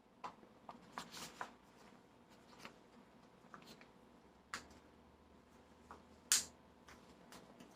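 Light kitchen handling: scattered soft clicks and taps, with a few close together about a second in and the sharpest click about six seconds in.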